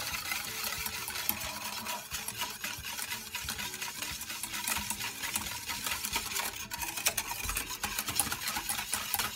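Wire balloon whisk beating a thin milk, egg and sugar mixture in a stainless steel pot, its wires rapidly clicking and scraping against the metal. The uncooked pastry-cream base is being whisked smooth.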